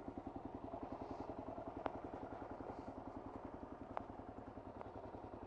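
Kawasaki KLR 650's single-cylinder engine running at low revs with an even pulsing beat, about ten pulses a second, and a few faint clicks.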